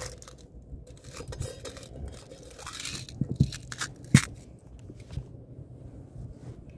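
A round metal tin being opened by hand: the lid scraping and clicking as it comes off, with one sharp metallic click about four seconds in, then small fiddling sounds as fingers pick at what is inside.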